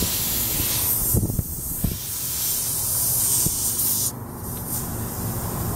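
Air hissing steadily out of a nail puncture in a car tyre's tread. The hiss cuts off sharply about four seconds in, as a silicone-coated screw is pressed into the hole and plugs it.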